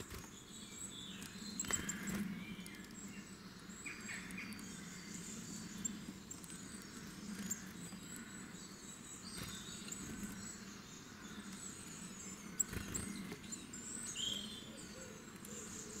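Faint mixed birdsong: scattered short chirps and calls from several birds over a low, steady background noise, with a couple of brief sharp taps.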